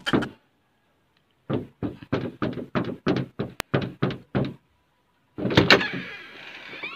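Knocking on a door, a run of about a dozen quick knocks at roughly four a second, then a louder clatter about five and a half seconds in.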